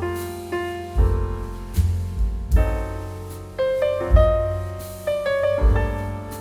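Background piano music: slow, sustained chords and melody notes, struck about once a second and left to ring out.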